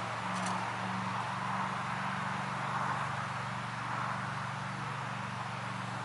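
Steady wind ambience by a pond, gently swelling and easing, over a continuous low hum.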